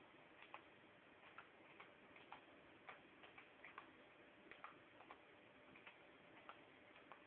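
Near silence over a low hiss, with faint, irregular clicks, a few a second.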